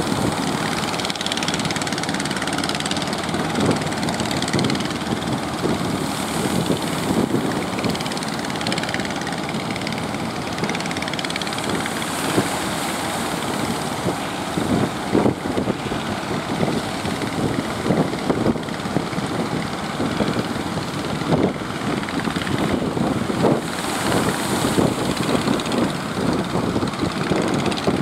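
Fishing boat's engine running steadily on open water, mixed with short irregular surges of noise.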